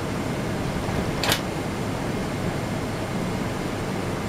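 Steady cabin noise of a Boeing 777-200ER in its climb after takeoff: an even rush of engine and airflow noise. A single short click sounds about a second in.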